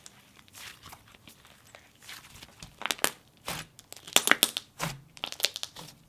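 Hands squishing, folding and pressing a soft, dense snow butter slime made with clay and instant snow, giving sharp clicking pops and crackles. They are sparse at first and come thick and fast in the second half.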